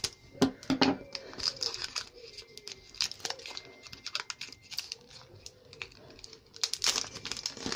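Foil Pokémon booster pack wrapper crinkling and being torn open by hand, with louder rustles shortly after the start and near the end.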